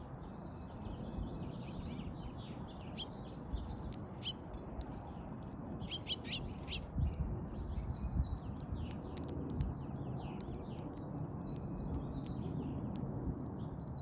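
Small songbirds chirping and twittering in quick, dense runs of short calls, with sharp ticks and clicks mixed in, loudest about six to seven seconds in. A steady low rumble runs beneath.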